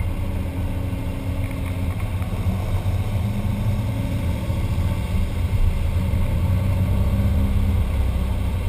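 Air-cooled flat-four engine of a VW Type 2 bus running as the bus drives slowly, a steady low rumble.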